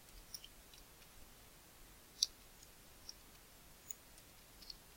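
Faint, scattered clicking of a computer keyboard and mouse, about five soft clicks, the loudest a little over two seconds in.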